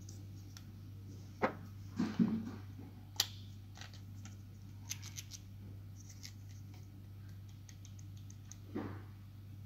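Small plastic and metal RC crawler axle parts being handled and fitted together by hand: a few sharp clicks and knocks between about one and a half and three seconds in, then lighter ticks, over a steady low hum.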